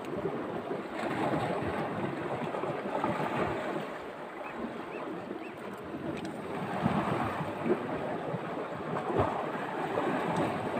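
Sea waves washing against shore rocks, with wind buffeting the microphone; the wash swells and ebbs, louder in the second half.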